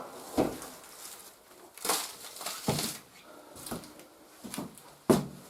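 Footsteps on frozen ground, a step roughly every second.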